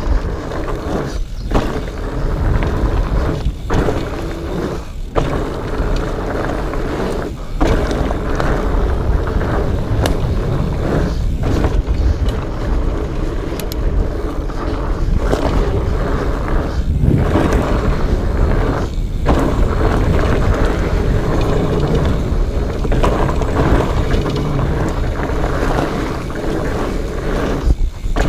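Fat-bike riding noise on a rocky trail: a Specialized Fatboy's wide tyres rolling and the bike rattling, under a steady rush of wind on the microphone that dips briefly several times.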